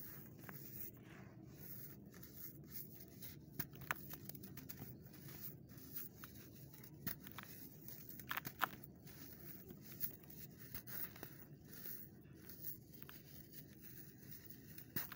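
Dry sand clumps crushed and crumbled by hand in a bucket: a faint sifting hiss of falling grains, broken by scattered crunchy crackles, with a few sharper crunches, the loudest about halfway through.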